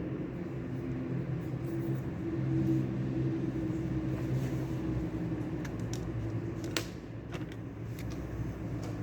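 Steady low mechanical hum with a few soft clicks about seven and eight seconds in.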